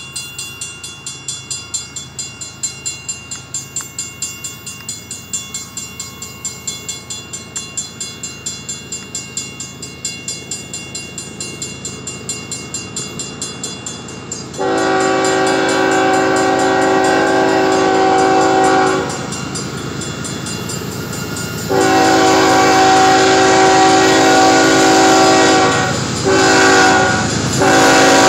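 Grade-crossing signal bell ringing with rapid, even strikes. About halfway through, the lead BNSF ES44C4 diesel locomotive's multi-chime air horn takes over, sounding the grade-crossing signal: two long blasts, a short one, then a long one held at the end.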